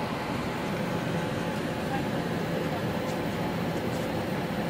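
Steady hum of an Airbus A321-211's cabin air-conditioning and ventilation while it is parked at the gate, heard inside the passenger cabin, with faint voices under it.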